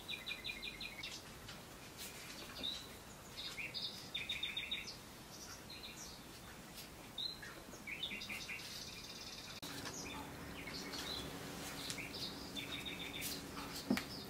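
A bird chirping in short quick trills, each a run of about six rapid high notes, repeating every few seconds. A faint steady hum comes in about ten seconds in, and there is a single sharp click near the end.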